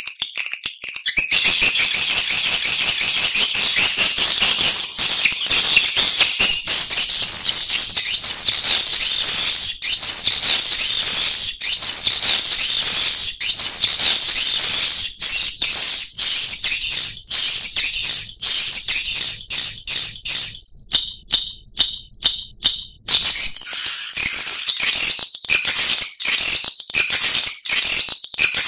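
Recorded lure call of edible-nest swiftlets: a dense, high-pitched, rapid twittering chatter that starts about a second in and breaks into a run of separate quick chirps for a couple of seconds near the end. It is the kind of recording played at swiftlet houses to draw swiftlets in to nest.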